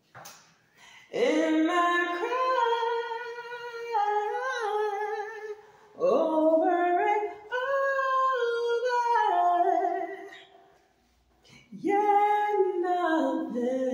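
A woman singing a cappella, freestyle, in three long phrases of held and sliding notes with vibrato and no clear words, with short breaths between them.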